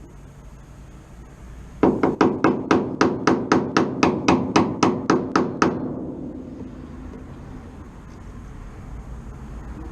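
Hammer driving a sacrificial chisel into a Classic Mini's steel outer sill to split the drilled-out spot welds: a quick, even run of about eighteen blows, four or five a second, starting about two seconds in and ending with a short fading ring.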